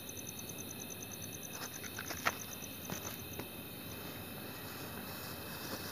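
Crickets chirping steadily, about ten high pulses a second. A few sharp crackles and pops about two seconds in come from a homemade matchstick-powder anar fountain firework catching light.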